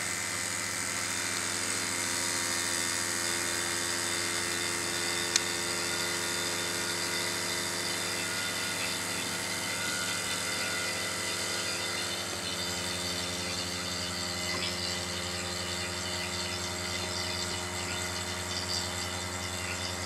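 Electric vacuum pump running steadily with an even hum as it pumps the air out of a glass bell jar; the hum shifts slightly about twelve seconds in. A single short click about five seconds in.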